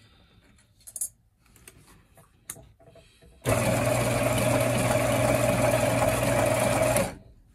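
TuffSew portable walking foot sewing machine, driven by its 1.5 amp domestic motor through a small belt speed reducer, starts about halfway in, stitches steadily and loudly for about three and a half seconds, then stops. Before it starts there are a few faint clicks.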